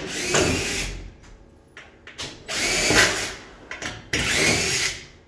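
Power drill running in short bursts, three times, each about a second long with pauses between.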